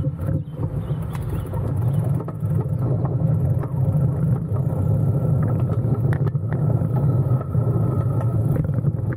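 Low, steady rumble of wind buffeting and tyre noise on a bicycle-mounted action camera while riding, with small scattered rattling clicks. It cuts off suddenly at the end.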